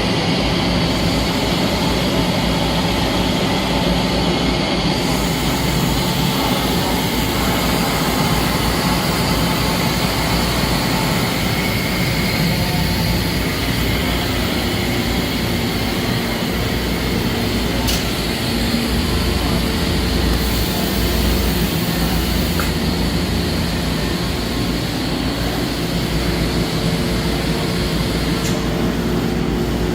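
Traub TNL 26 CNC Swiss-type lathe running, a steady dense mechanical whir with a faint hum. There is one brief tick a little past halfway.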